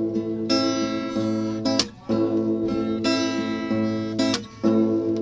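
Acoustic guitar strummed in a repeating chord pattern, with crisp strokes and a chord change every second or two.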